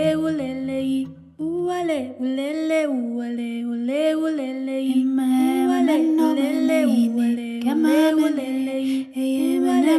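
Background music: a voice singing a short chant-like phrase over and over, each phrase rising and falling in pitch. A low accompaniment drops out about a second and a half in, and a second voice joins about halfway through.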